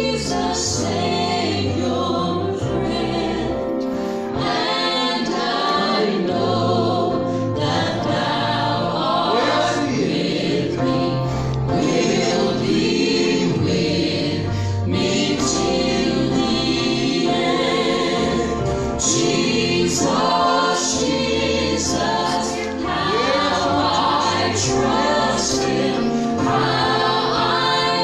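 Gospel group singing live in harmony, men's and women's voices together, amplified through microphones.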